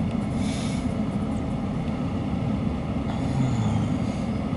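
Empty autorack railcars of a CSX freight train rolling past: a steady rumble of steel wheels on the rails, with a brief higher hiss about half a second in.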